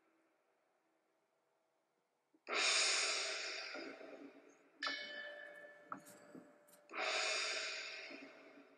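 Two heavy breaths out, each starting sharply and fading away over about two seconds, with a light click and a brief ringing tone between them.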